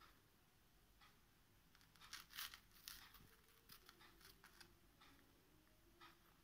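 Faint crackling and small crunchy snaps as a crisp, batter-fried potato chop is torn apart with the fingers, clearest about two to three seconds in, over near silence.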